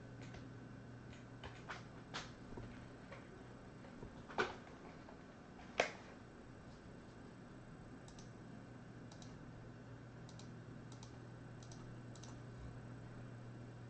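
Scattered clicks and taps of a computer keyboard and mouse, two of them louder about four and a half and six seconds in, with fainter ones later, over a steady low electrical hum.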